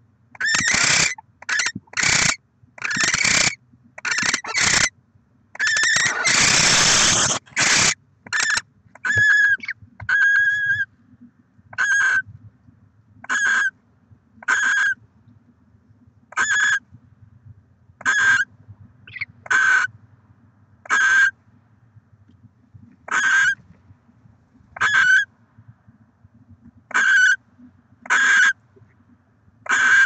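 Barn owls calling in the nest box: a quick run of harsh, noisy calls in the first eight seconds, the longest held for nearly two seconds, then short, clearer calls repeated about every second and a half.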